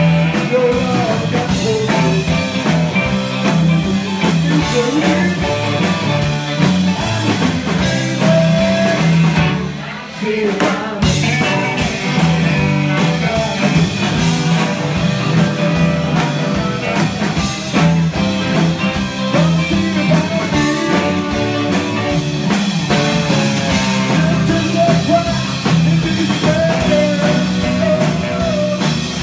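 Live rock-and-roll band playing: electric guitar, saxophone and drum kit, with a man singing. A short break in the playing about ten seconds in.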